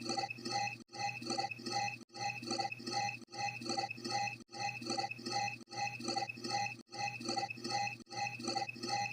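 A short sound effect looped over and over, restarting about every 1.2 seconds. Each repeat is a quick run of clinking, ticking notes over a steady low hum.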